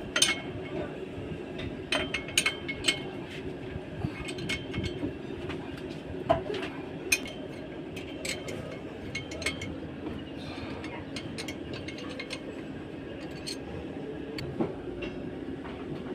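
Scattered metallic clinks and taps, as of hand tools on steel truck parts, over a steady mechanical hum.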